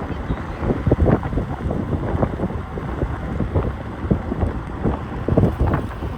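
Wind buffeting the microphone: a steady rumbling noise with irregular gusty surges.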